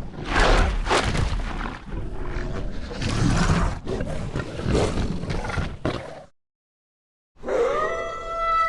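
Werewolf sound effect: a rough, noisy roar lasting about six seconds, then after a short gap a steady pitched howl begins near the end.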